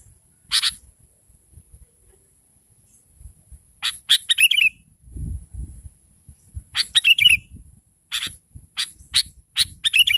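Sooty-headed bulbul giving short, sharp chattering calls in clusters: one call just after the start, a quick burst about four seconds in, and a run of repeated calls over the last three seconds. A faint steady high tone runs behind the calls.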